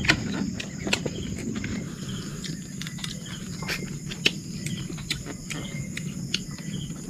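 Insects chirring steadily, with a handful of sharp clicks and taps from eating crab by hand at a table, plates and shells knocking.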